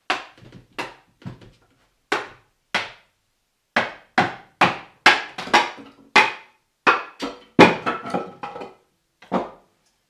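Hammer striking a wooden roof board on top of a hollow apple log: about eighteen sharp knocks, irregular at first and coming faster in the middle of the run.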